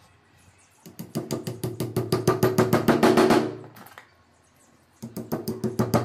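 Hammer rapidly tapping glued teak dowels into drilled holes in a cricket bat's willow blade, about ten quick strikes a second with a wooden ring. Two runs of tapping, the first lasting about two and a half seconds, the second starting about five seconds in.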